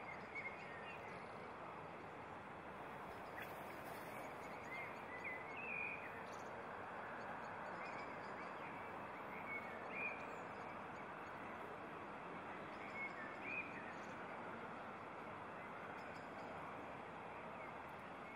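Quiet canalside ambience: a steady background rush with short bird calls breaking through every few seconds.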